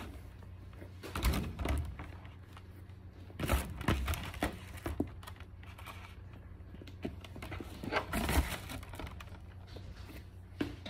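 Hands handling a Fluffie Stuffiez plush and its pulled-off fluff: rustling and soft knocks in three short bursts, about a second in, around four seconds in, and near eight seconds in, over a low steady hum.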